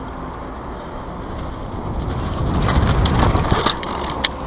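Mountain bike rolling fast down a dirt jump trail: a steady rushing rumble of tyres on loose dirt and air over the camera, growing louder about halfway through, with several sharp clicks and rattles from the bike over bumps.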